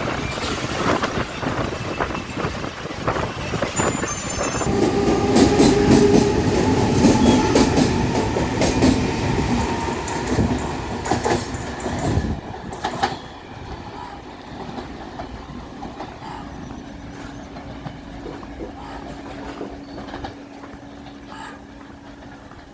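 Mumbai suburban electric local train running on the rails, wheels clacking over the rail joints. It is loud for the first twelve seconds, then drops suddenly to a quieter, steady rumble with a low hum.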